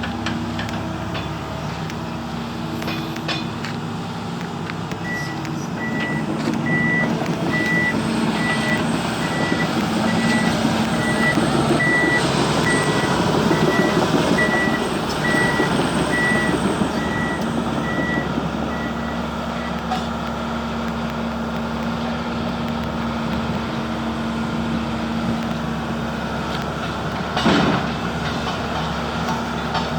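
Kobelco SK170LC-10 excavator's diesel engine running, with a single-pitch warning alarm beeping steadily a little more than once a second for about fifteen seconds, from a few seconds in. The engine swells in the middle, and there is a single sharp knock near the end.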